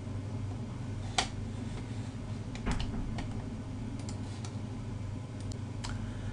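Room tone: a steady low hum with a few short, faint clicks scattered through it, the sharpest about a second in.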